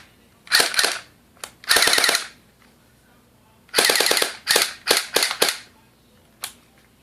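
JG MP5 airsoft electric gun firing, in short rapid full-auto bursts and a few single shots with gaps between.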